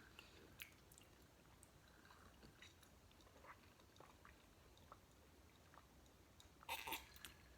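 Faint close-up chewing and mouth sounds with scattered small clicks, and a louder burst of chewing near the end.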